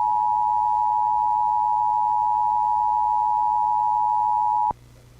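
Emergency Alert System two-tone attention signal (853 Hz and 960 Hz together), a steady loud tone that cuts off sharply about half a second before the end. It announces an Evacuation Immediate (EVI) alert.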